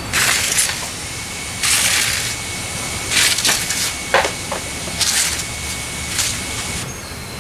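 A run of about five short hissing bursts, each about half a second long. A faint steady whistle sits underneath from about two seconds in until near the end.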